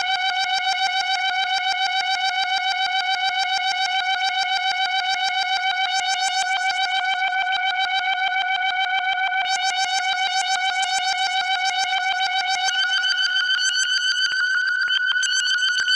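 NK 1001 software monophonic synthesizer sounding one steady, high, buzzy note with a fast rhythmic flutter. Near the end its lowest tone drops away and the sound turns thinner and brighter.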